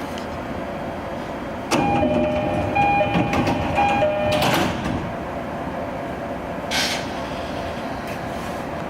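Train door-closing chime: a high-low two-tone chime repeated three times, then the doors sliding shut with a clatter about four and a half seconds in. A short hiss of air comes a couple of seconds later.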